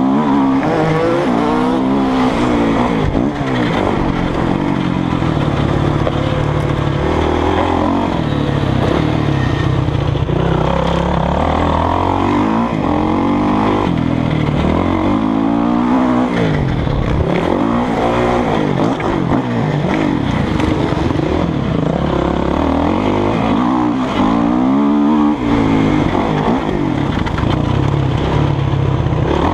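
Kawasaki KX450F single-cylinder four-stroke motocross engine, heard from on the bike, revving up and falling back again and again as the rider accelerates, shifts and rolls off through the track's turns.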